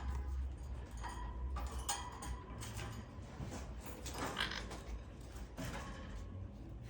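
Faint scattered scrapes and rattles from a pet blue quaker parrot moving about its cage, with a louder cluster about four seconds in.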